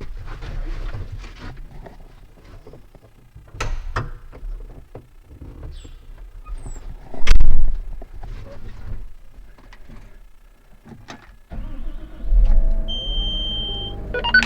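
Knocks and clunks, with one loud thump about 7 seconds in. Then, about 11.5 seconds in, a Caterpillar 930M wheel loader's diesel engine starts and runs, rising in pitch, with a short steady beep near the end.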